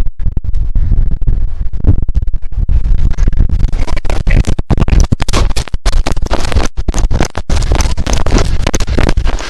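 Loud rumbling, scratchy noise on a body-worn camera's microphone, chopped by sudden dropouts and clicks: the mic rubbing and being buffeted as the wearer moves.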